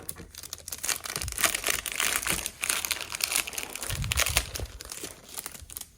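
Crinkling and rustling of packaging and paper as scrapbooking kit pieces are handled. It is densest through the middle, with a low bump about four seconds in.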